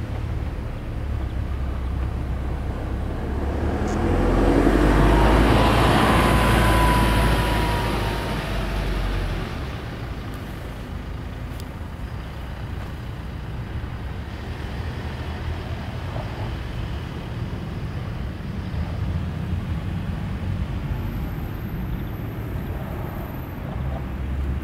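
Road traffic: a passing vehicle swells up about four seconds in and fades away by about nine seconds, over a steady low rumble of traffic.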